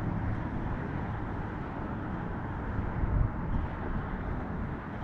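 Wind rumbling on the microphone in open air: a steady low rush, with one brief louder buffet about three seconds in.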